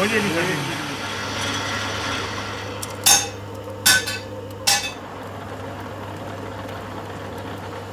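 Metal lathe spindle winding down with a falling whine over the first second, over a steady machine hum. About three seconds in come three sharp metallic knocks, roughly a second apart, at the lathe's chuck.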